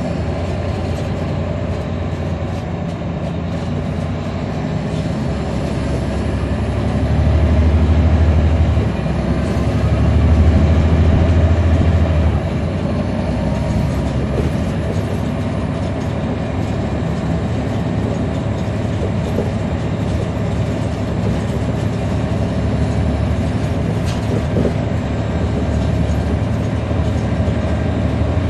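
Inside a NABI 416.15 transit bus: its Caterpillar C13 ACERT diesel engine running with a steady low rumble while the bus drives. The engine noise swells louder twice, about seven and ten seconds in.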